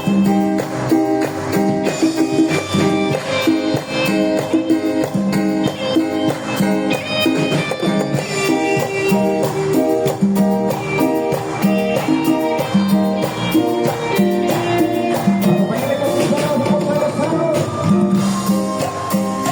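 Live band playing an instrumental passage of an upbeat Latin song with a steady, even beat.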